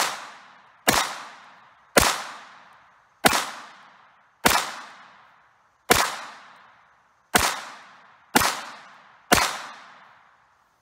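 Walther P22Q .22 LR pistol firing nine shots at a steady pace of about one a second, each sharp crack trailing off over most of a second. The last shot comes just past nine seconds in. The pistol feeds and cycles Winchester Silvertip rounds with no stoppage.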